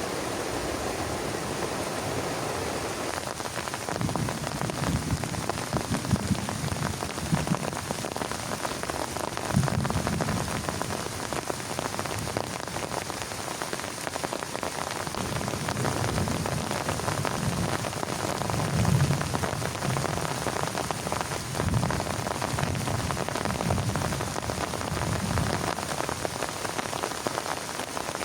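Heavy rain drumming steadily on a plastic tarp, with heavier low pattering swelling up every second or two.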